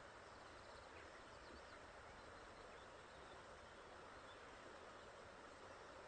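Faint, steady rushing hiss of outdoor valley ambience, with a few faint high bird chirps over it.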